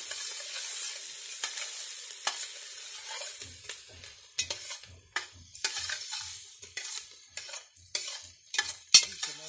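Chopped onions with paprika frying in rendered pork fat in a pot over a wood fire, sizzling steadily while they brown. After about three and a half seconds a spoon stirs them in quick strokes, scraping and knocking against the pot about twice a second, with one sharp scrape near the end.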